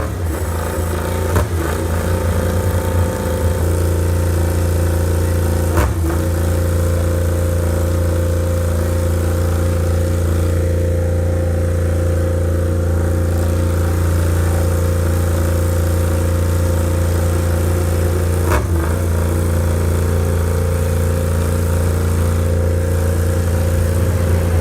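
MotoGP racing motorcycle engine running at a steady fast idle, a loud deep even note that holds its pitch, with three brief sharp clicks along the way.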